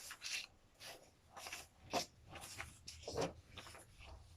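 Picture cards being handled and set down on a table: a few soft taps and rustles at irregular intervals, the sharpest about two seconds in.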